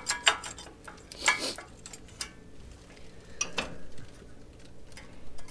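Brake pads and a hand tool clinking and scraping against the steel caliper bracket of a truck's front disc brake as the old pads are worked out, in several short bursts of metal-on-metal clatter.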